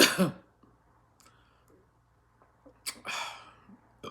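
An eater's mouth sounds: a short, loud vocal sound falling in pitch at the start, then a sharp click and a breathy exhale about three seconds in, and another click near the end.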